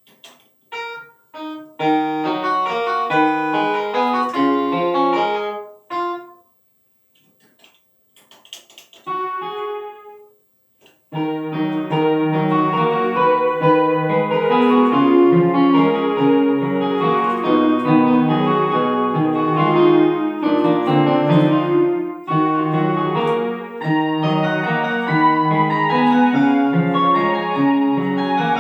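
Piano or electric piano music with short pauses over the first ten seconds, then playing on without a break from about eleven seconds in.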